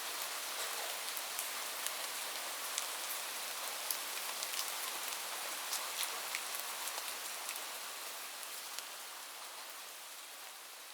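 Light rain falling steadily, with many separate drops ticking on a surface. It begins to fade out about seven seconds in.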